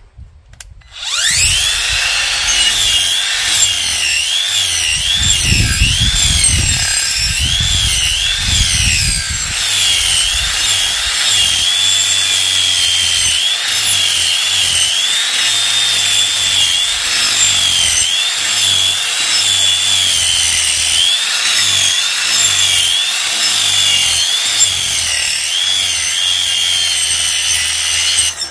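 Parkside cordless angle grinder with a 125 mm rasping disc spinning up and rasping into the end of a tree stump. Its motor whine dips and recovers again and again as the disc bites, with a heavy grinding rumble for a few seconds early on. It cuts out at the very end, which the user thinks is probably the battery overheating and tripping its overload cutout.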